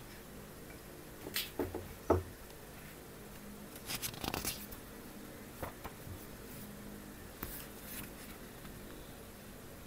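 Soft sounds of a book being annotated: a few light taps with a low thump about two seconds in, fingers rustling a page about four seconds in, and faint ticks and scratches of a pen writing on the paper.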